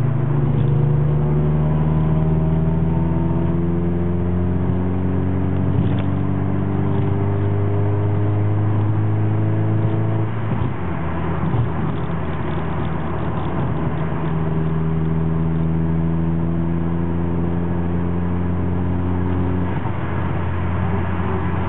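Honda Civic's engine heard from inside the cabin, accelerating with a steadily rising pitch, then dropping as it shifts up about ten seconds in. It climbs again in the next gear before another shift near the end.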